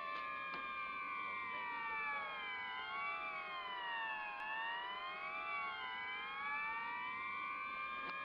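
Soundtrack of several layered sustained tones, siren-like, gliding slowly down in pitch for about four seconds and then back up in a mirror image.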